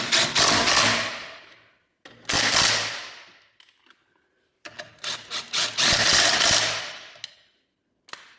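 Impact wrench running the wheel bolts in, in three bursts of rapid rattling hammering that each fade out after one to three seconds.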